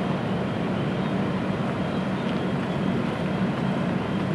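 A steady low rumble with hiss underneath, unbroken and without distinct events.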